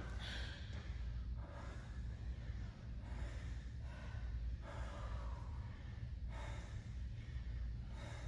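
A man breathing hard from exertion while lifting dumbbells, with a loud breath about every second and a half, over a steady low room hum.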